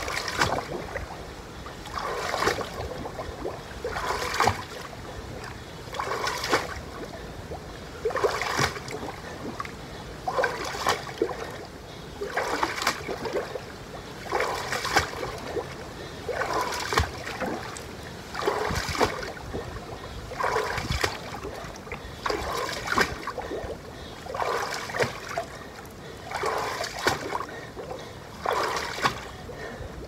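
Water splashing and sloshing in a shallow inflatable pool as legs step and jump through it during a workout, one surge of splashing about every two seconds in a steady rhythm.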